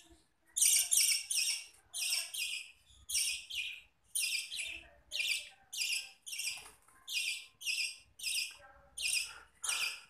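Young hand-fed budgerigar chick chirping over and over, harsh high chirps about every half second, often in quick pairs.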